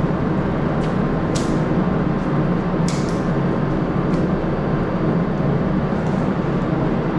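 A few short hisses of a spray gun or aerosol over a steady low machine drone.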